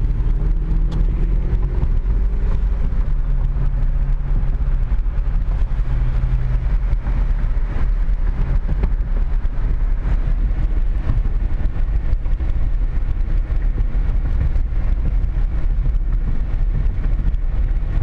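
Car driving at road speed heard from inside the cabin: a steady low rumble of engine, tyres and wind. An engine tone rises gently over the first few seconds as the car gathers speed.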